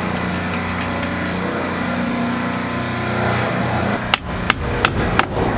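A steady engine hum, then a few sharp hammer taps near the end.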